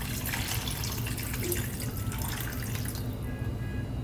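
Water poured from a container into a baking tray of lamb and vegetables, splashing steadily for about three seconds, then stopping.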